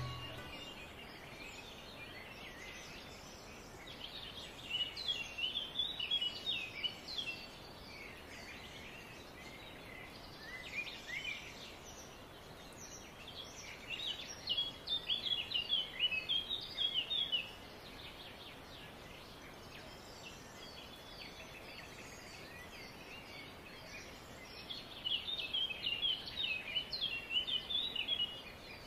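Birds chirping outdoors in several bursts of rapid chirps, each a few seconds long with pauses between, over a faint steady background hiss.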